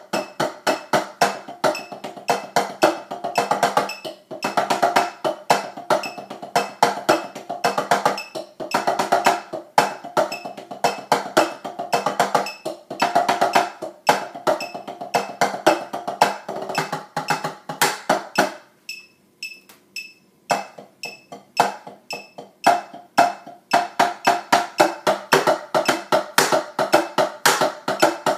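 Drumsticks playing a drumline cadence on a rubber-topped multi-pad tenor practice pad: fast, dense strings of dry taps in a steady rhythm. About two-thirds of the way through it thins to a few sparse strokes for a couple of seconds, then the full pattern resumes.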